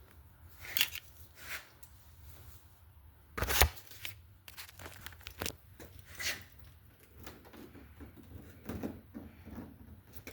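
Scattered handling noises: rustling, scraping and light knocks, with one louder knock about three and a half seconds in.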